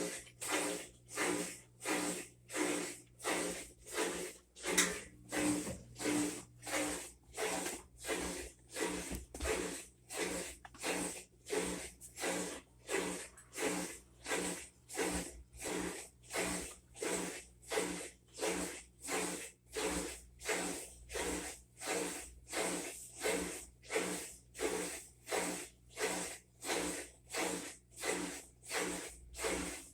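Whirlpool top-load washer agitating: an even, rhythmic swishing of water and clothes, a little faster than one stroke a second.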